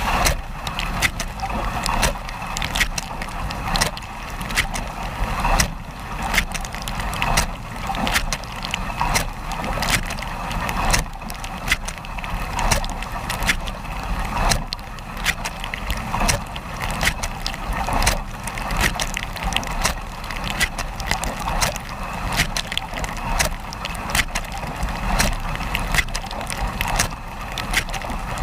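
Dishwasher running: water spraying and splashing inside the tub with frequent sharp clicks and knocks, swelling and fading about every second and a half over a low hum.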